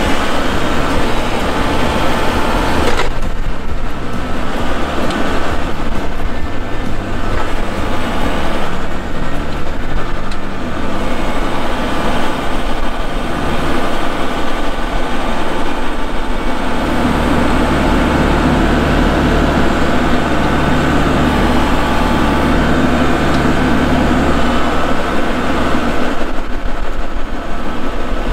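Kubota MX5200 compact tractor's diesel engine running close up while the front-end loader handles pine logs. The engine works harder and louder for several seconds in the second half, then eases back.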